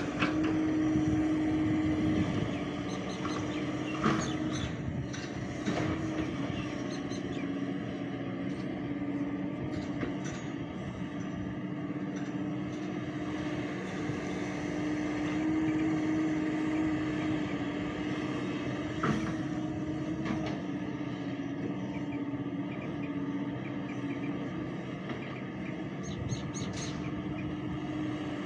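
Hyundai crawler excavator's diesel engine and hydraulics running steadily while it digs and loads earth into a tipper truck, with a few sharp knocks from the bucket and falling earth.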